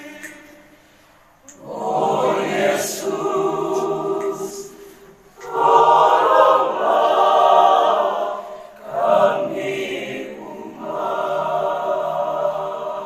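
A choir singing in four phrases of several seconds each, with short breaks between them, after a brief lull at the start.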